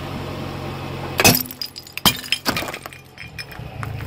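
A glazed ceramic duck figurine cracking and shattering under a car tyre, with the loudest crash about a second in, a second crack a moment later and shards clinking after. A car engine idles steadily underneath.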